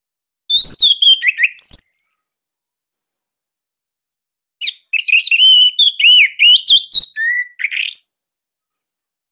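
Orange-headed thrush (anis merah) singing two fast phrases of quick, varied whistled notes. The first is short, starting about half a second in; the second is longer, starting about four and a half seconds in and lasting some three seconds, with a single faint note between them.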